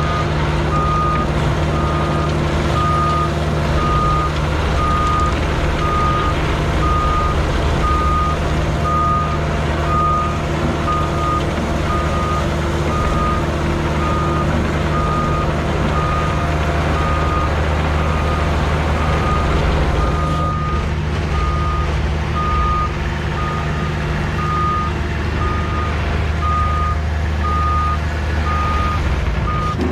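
A backup alarm on a piece of construction equipment beeping steadily in an even rhythm over the steady running of its engine.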